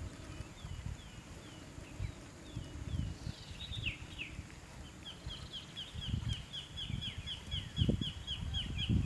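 A bird calling: short, high, falling chirps, scattered at first, then a steady quick series of about three or four a second from about halfway in. Low irregular rumbles and bumps sound underneath.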